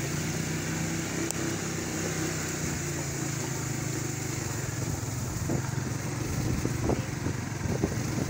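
Small motorcycle engine running steadily at an even pitch, heard from the rider's seat as it is ridden along a rough, muddy dirt track, with a few short knocks and rattles in the second half.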